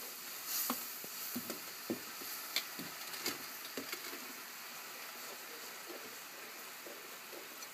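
Wine sizzling and bubbling in a hot metal skillet as it deglazes the browned chicken drippings. Tongs scrape and click against the pan several times in the first few seconds, then the clicks thin out.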